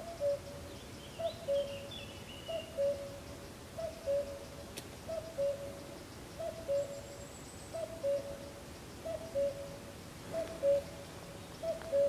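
Common cuckoo calling its two-note "cu-ckoo", the second note lower, repeated evenly about once every 1.3 s, around nine times. A smaller bird chirps briefly about a second in.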